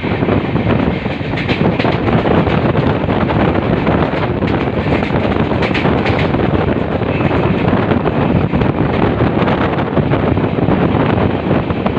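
Express passenger train running along the track: steady noise of wheels on the rails, with scattered clicks and rattles.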